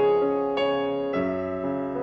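Solo piano music, single notes and chords struck about every half second and left to ring and fade.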